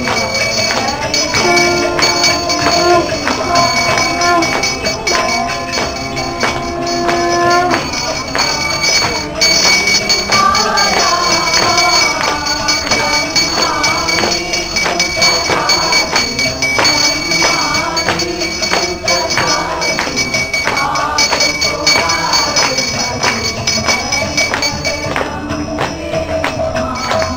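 Devotional aarti music: rapid jingling metal percussion and a steady ringing tone over a melody, with held notes in the first few seconds and a wavering melodic line after that.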